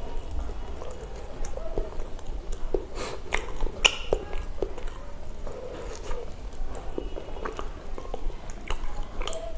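A person chewing mouthfuls of pav bhaji (soft bread rolls and mashed vegetable curry) close to the microphone, with irregular wet clicks and smacks of the mouth.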